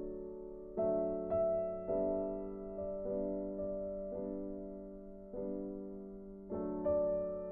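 Background piano music: slow, gentle chords and notes struck about once a second, each one fading away before the next.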